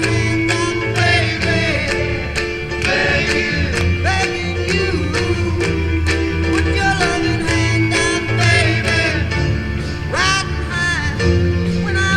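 A song with singing and a steady beat, played through a Jeep Wrangler JK's upgraded Mopar Kicker 6.5-inch door speakers as a sound test.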